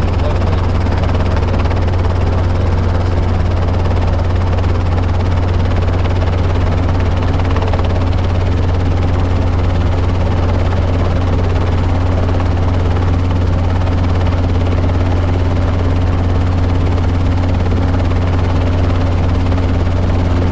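Robinson R22 helicopter running on the ground with its rotor turning, heard from inside the cockpit: a steady, loud low drone of the four-cylinder Lycoming engine and rotor.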